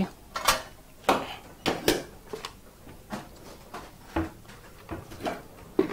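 Irregular knocks and clicks of a plastic blender's jug and base being lifted out from under the counter and set down, about eight or nine separate hits.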